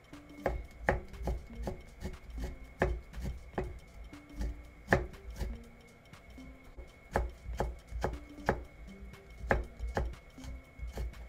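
Kitchen knife chopping carrot into thin matchsticks on a plastic cutting board: an irregular run of sharp knocks, a few a second.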